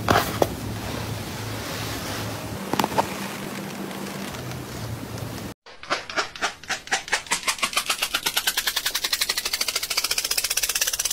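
A few faint knocks over a steady low hum, then rapid rhythmic scratching strokes that speed up over several seconds: a cat in a plastic cone scratching at its head with a hind leg.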